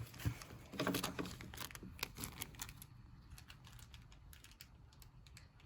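Light, irregular clicks and taps of small metal door-lock wafers being picked through and handled, busier in the first few seconds and sparser after.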